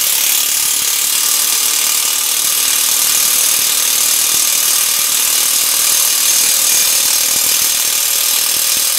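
DeWalt DW292 1/2-inch corded impact wrench hammering steadily, a loud rapid rattle, on a bicycle's bottom-bracket fixed cup through a fixed-cup removal tool, working to break the tight cup loose.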